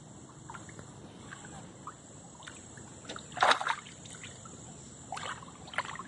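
Hooked catfish splashing at the water's surface as it is reeled in beside the boat, with one loud splash about halfway through and smaller splashes around it.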